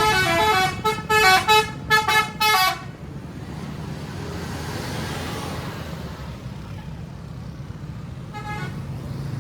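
Bus telolet horn, a multi-tone air horn, playing a stepping melody that breaks into a few short toots and stops about three seconds in. Then a steady low vehicle rumble, with one brief horn toot near the end.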